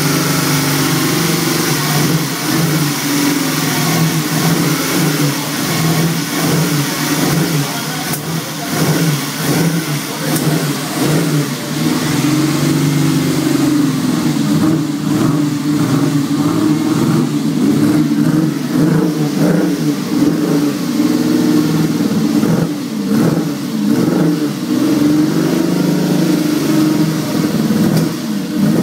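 Ferrari 212 Export's 2.6-litre V12 running at idle, its note wavering and rising a little now and then.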